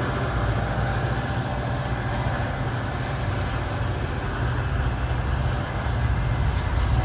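Metra commuter train's diesel locomotive and passenger cars rolling along the rails, a steady low rumble with rail and wheel noise as the train draws away.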